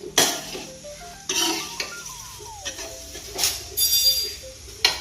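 A metal spoon or spatula stirring frying poha in a metal pan, clattering and scraping against it about five times over a faint frying sizzle.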